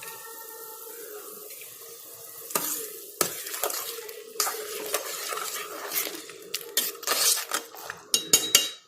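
A spoon stirring and scraping in a rice cooker pot, with irregular metal clinks, starting about two and a half seconds in; biryani masala is being mixed into the simmering buttermilk-and-chicken base. Before that, a faint steady hum.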